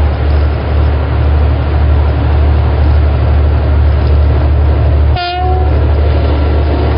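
Twin-section diesel freight locomotive passing close by under power, a heavy, steady engine rumble mixed with wheel and rail noise from the tank wagons behind it. A brief horn-like note sounds about five seconds in.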